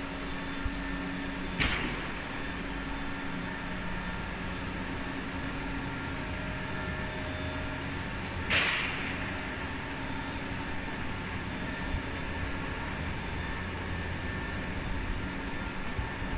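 Steady hum of factory machinery on a veneer peeling line, broken by two short sharp hisses, one a couple of seconds in and a louder one about halfway.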